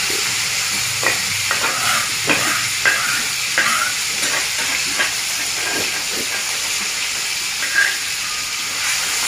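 Ground tomato-chili sambal with tuna sizzling as it fries in a metal wok over a wood fire. There is a string of short metal scrapes and clinks from a spatula and spoon, mostly in the first six seconds or so.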